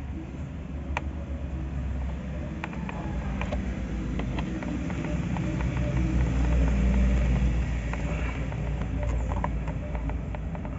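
Light, scattered clicks and taps of plastic wiring connectors being handled and pushed onto a washing-machine control board. Under them runs a low rumble with a faint hum that swells to its loudest about two-thirds of the way through, then eases.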